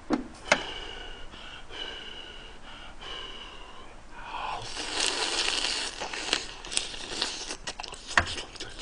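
Close-up eating sounds of a mouthful of swimming crab: a loud, wet slurping and sucking as the meat is drawn out of the shell, followed by a run of sharp crunching clicks as he chews on the shell.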